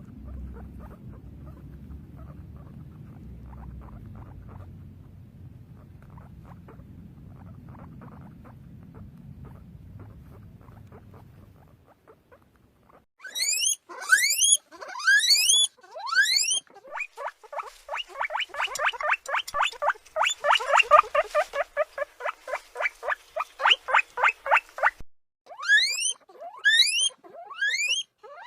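Guinea pig vocalising: after a low rumble with faint clicks, loud rising whistled wheeks start about halfway through, followed by a rapid run of short squeaks, about five a second, then more rising wheeks near the end.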